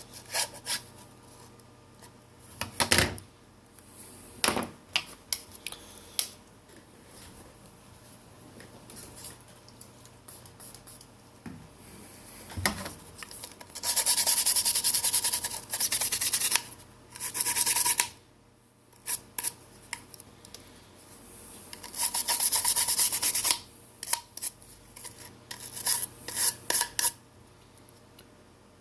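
Hand tool scraping and brushing old adhesive off a smartphone's frame: scattered clicks and taps, with several rasping stretches of a second or two around the middle.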